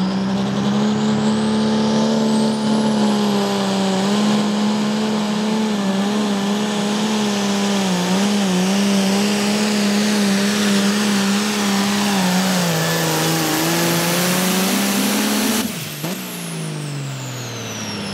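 Ford 9600 pulling tractor's turbocharged diesel engine running flat out under load, with a high whistle rising over the first few seconds. The engine note wavers in the middle and drops slightly about twelve seconds in. Near the end the sound breaks off sharply to a lower level, and the engine and whistle fall away in pitch.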